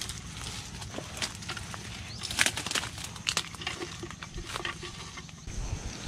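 Irregular rustling of dry leaves and twigs with light knocks and scrapes as a bamboo tube crab trap is handled and set at a burrow in the undergrowth. The loudest rustles come a little over two seconds in and again about three seconds in.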